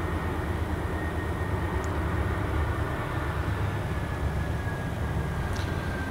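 GE C40-8W diesel-electric locomotive working to pull a grain train: a steady low engine rumble with a thin high whine that falls slowly in pitch.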